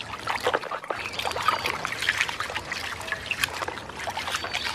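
Soapy water sloshing and splashing in a plastic basin as a hand swirls and scrubs a toy in it, with many small irregular splashes and drips.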